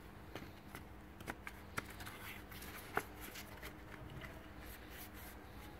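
Soft plastic clicks and rustles as a new panel air filter is handled and pushed into its black plastic guide frame, with a sharper click about three seconds in.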